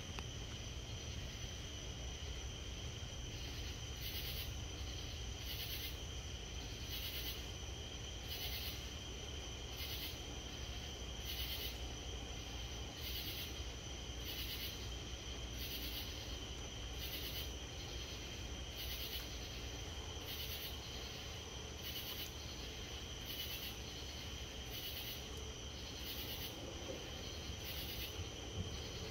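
Night insects calling: a steady high-pitched trill, joined about four seconds in by a pulsing call that repeats roughly every second and a half, over a low steady background noise.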